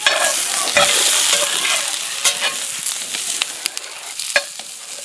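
Breakfast food sizzling in a frying pan, loudest in the first second or two, with a utensil clicking and scraping against the pan a few times as it is stirred.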